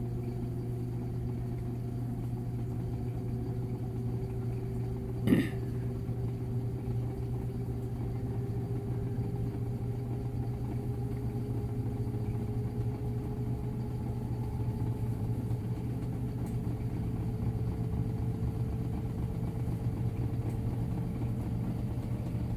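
Samsung top-load washing machine spinning its empty drum at high speed: a steady motor hum and drone with a whine that rises slowly as the spin keeps speeding up. A single short knock about five seconds in.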